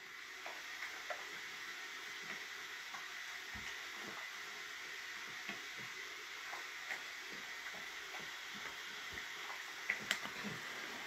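Dog eating dry food from a metal bowl: irregular small crunches and clicks of chewing and kibble against the bowl, with two sharper clinks about ten seconds in.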